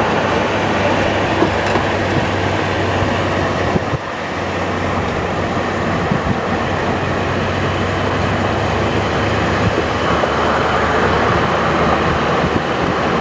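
Steady running noise of a moving train heard from aboard: wheels rumbling on the rails under a continuous low hum, dipping briefly about four seconds in.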